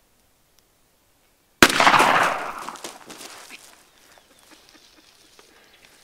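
A single shotgun blast about a second and a half in, ringing out and dying away over a second or so: the shot that drops the strutting Gould's turkey gobbler. Faint, irregular rustling and flapping follow as the downed bird flops on the ground.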